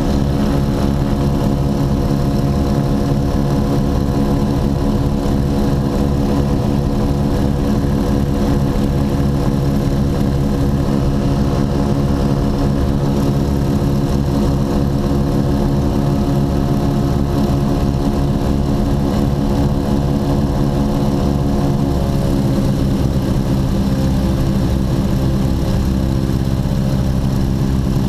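Ford Tri-Motor's three radial engines and propellers running steadily in cruise flight, heard from inside the cockpit. A little past twenty seconds in, the engine note shifts slightly lower.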